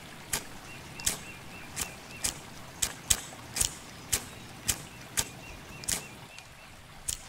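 Short, sharp cracks from hands working at a pile of dry twigs laid for a campfire, about a dozen of them roughly every half second.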